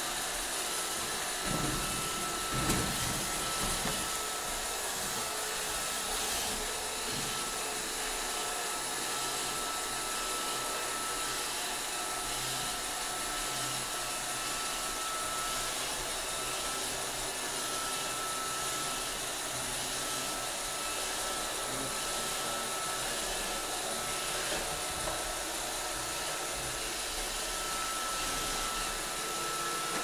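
iRobot Roomba robot vacuum running: a steady whir of its motor and brushes with a faint high whine. There are a few low thumps about two to three seconds in.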